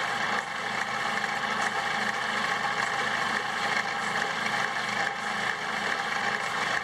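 Ripsaw portable bandsaw mill running unloaded on an electric motor powered from a small 20-volt power-tool battery: a steady motor hum and blade whir.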